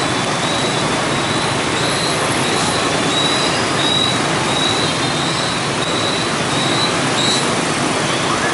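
Dense intersection traffic: a steady din of many motor scooter engines, with a city bus passing through. A faint high squeal comes and goes until about seven seconds in.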